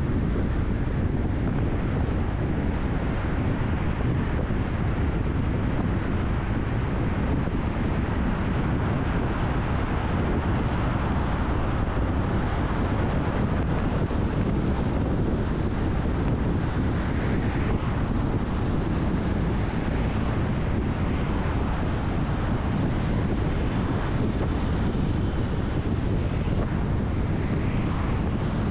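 Steady rumble of road and wind noise from a car driving along, with no distinct events.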